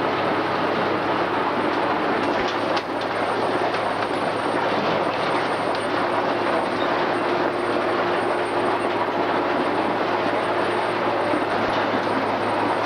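Case IH 885XL tractor and Grimme RowOver potato harvester running steadily while harvesting: the tractor's diesel engine hums under the continuous noise of the harvester's working parts, with one brief click about three seconds in.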